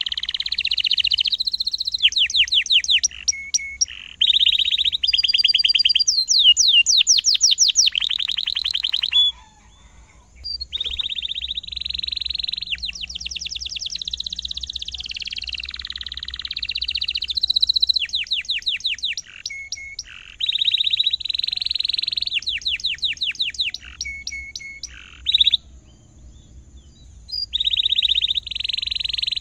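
Domestic canary singing a long, loud song: runs of fast repeated notes (rolls) alternate with held, sweeping chirps. The song breaks off briefly about ten seconds in and again a few seconds before the end.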